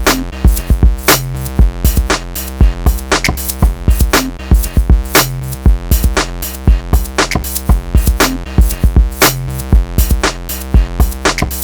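Electronic music with a steady drum-machine beat and deep bass notes.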